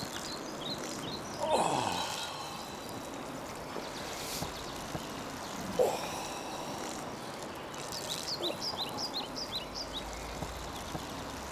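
Woodland ambience: small birds chirping in quick high runs over a steady background hiss, with a brief louder sound about a second and a half in.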